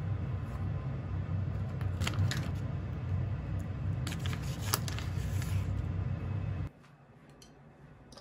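Steady low hum of a kitchen range hood fan, with a few light clicks and rustles of chopsticks and a plastic food packet. The hum stops abruptly about two-thirds of the way through, leaving a much quieter room.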